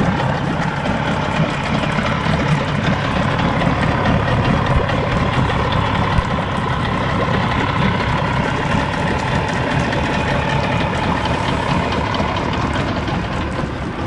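50 hp Evinrude/Johnson two-stroke outboard motor idling low and steady just after a cold start.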